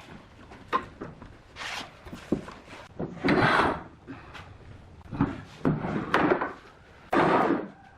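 Wooden pieces being handled: irregular knocks of wood on wood and several short scraping strokes, the longest a little after three seconds in and again around seven seconds.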